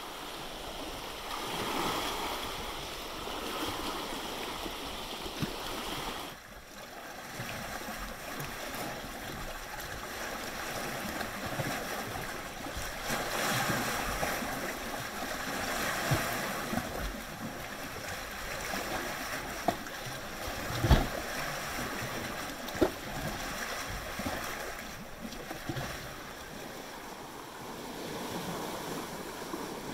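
Small lake waves lapping and washing against flat sandstone ledges, swelling and easing every few seconds. A few sharp taps come in the second half, the loudest about two-thirds of the way through.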